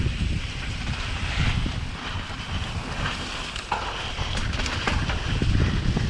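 Wind buffeting the microphone as a mountain bike rolls down a dirt trail, with a steady low rumble from the tyres and frame over the ground and scattered rattling clicks.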